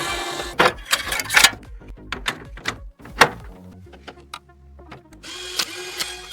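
Close-up clicks and taps of computer parts being handled and fitted during a PC build, with a steady rasping noise for about a second near the end.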